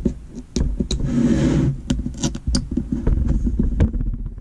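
Hands pressing and rubbing a plastic number plate against a table: an irregular run of clicks and taps, with a stretch of rubbing about a second in, over a steady low rumble.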